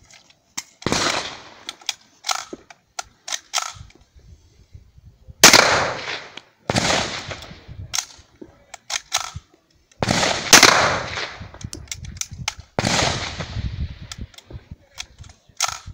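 KRISS Vector submachine gun firing a string of shots, each with a ringing echo, some close together and others separated by pauses of a few seconds. The firing is broken up because the gun was jamming repeatedly: the shooter's grip was pressing the magazine release and slightly unseating the magazine.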